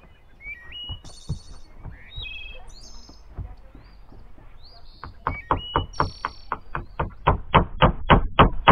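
Hammer driving a roofing nail through a corrugated ondulin (bitumen) roof sheet into the wooden frame: a few scattered taps, then from about five seconds in a quick run of blows, about four a second, growing louder.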